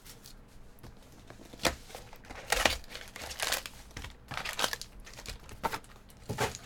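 Foil-wrapped trading-card packs and their cardboard box being handled. There is crinkling and rustling as the packs are taken out and stacked, with several separate sharp crinkles.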